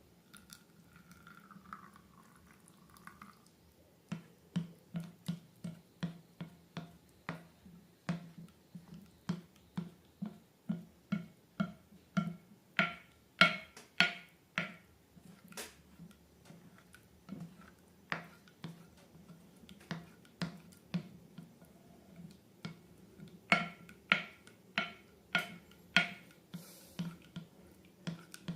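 Slime being squeezed and pressed by hand, making sharp wet clicks and pops about twice a second from about four seconds in.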